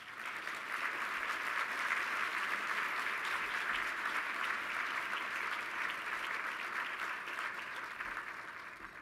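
An audience applauding: clapping swells within the first second, holds steady, then dies away near the end.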